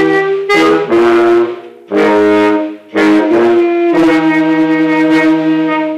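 An alto saxophone and a low brass horn playing together in short phrases of held notes, a low line under a higher one, with brief breaks about once a second. The last note is held for about two seconds and stops near the end.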